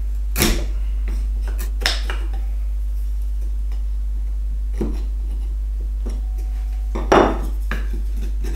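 Four sharp knocks and clatters of a wood chisel and softwood pieces on a workbench as the notch of a halving joint is cleaned out and the joint is test-fitted, the loudest about seven seconds in. A steady low hum runs underneath.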